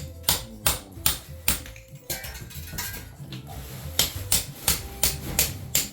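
Hand hammer striking, chipping the last leftover bits off a wall, about three sharp blows a second with a short pause midway.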